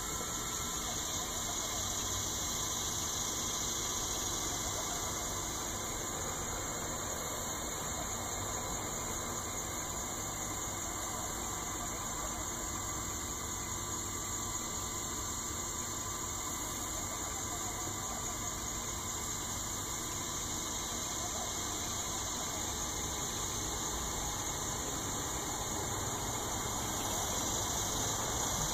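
Steady machine whir with a high hiss from a DIY laser engraver running its cooling fan and stepper motors while the laser burns. It is a little louder near the end.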